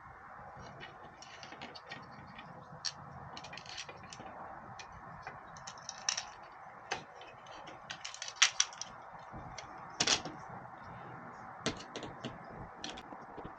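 Irregular light clicks and clinks of small hard parts and tools being handled while working on a doorbell, over a steady low background hiss. A few louder clacks come about two-thirds of the way in.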